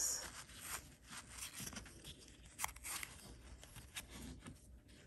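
Faint rustling and a few small clicks of a jewelry gift box and earrings being handled.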